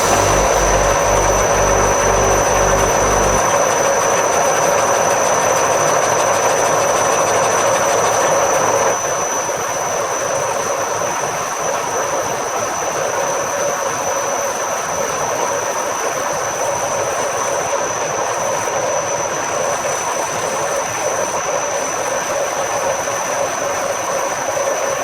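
Metalworking machine tool running steadily: a constant high whine over an even rush of machining noise, a little quieter from about nine seconds in.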